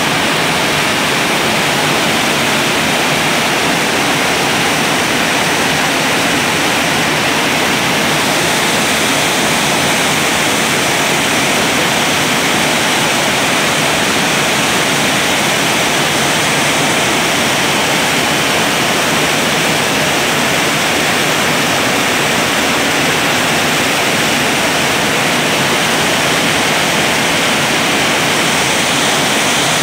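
Raging muddy floodwater torrent rushing past, a loud, steady roar of churning water.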